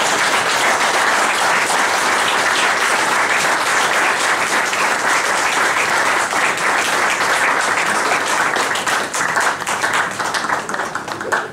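Audience applauding steadily, dying away into scattered separate claps near the end.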